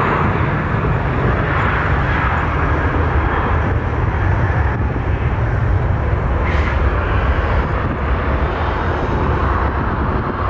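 Jet engines of a twin-engine widebody airliner touching down and rolling out on the runway: a steady, even noise with a strong low rumble.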